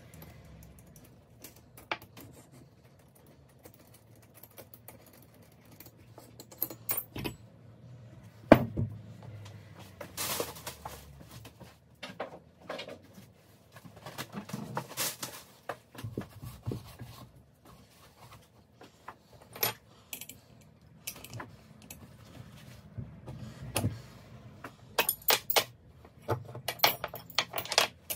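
Scattered metal clinks and clatter as wrenches and turbocharger housings are handled and set down on a workbench during disassembly. One heavier knock comes about eight seconds in, and a quick run of clinks comes near the end.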